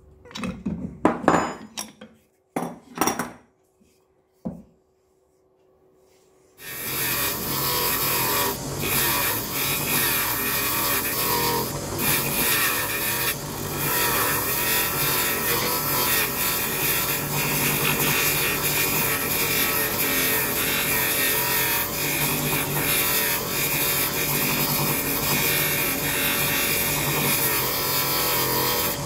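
A few short metallic clicks and knocks as a wrench tightens a nut, then, about six and a half seconds in, a disc sander starts and runs steadily, grinding a small wooden handle held on a threaded rod against the sanding disc.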